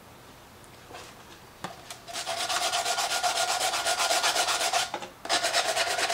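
Sandpaper scrubbed rapidly back and forth over a steel tin can, scuffing its surface so it will take paint, with a faint steady ring from the can. The rubbing starts about two seconds in, stops briefly near the five-second mark, and resumes.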